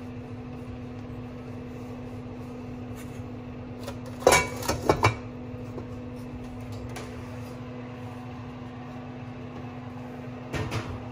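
Enameled metal pot lid clattering as it is set onto the pot, a quick cluster of sharp clanks about four seconds in. A smaller clatter comes near the end, over a steady low hum.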